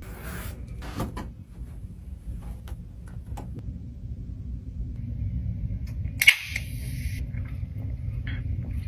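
Eating sounds: small clicks and crunches of chewing over a steady low rumble, with one sharp snap about six seconds in followed by about a second of hiss.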